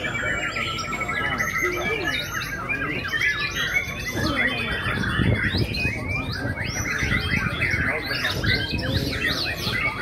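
Many caged white-rumped shamas (murai batu) singing at once in competition, a dense tangle of rapid overlapping whistles and chirps. A low murmur of voices runs underneath.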